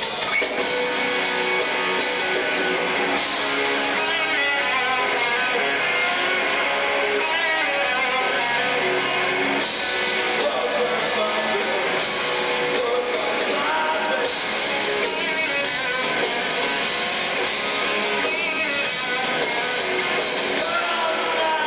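Rock power trio playing live: electric guitar leads with wavering, bending notes over bass guitar and drums.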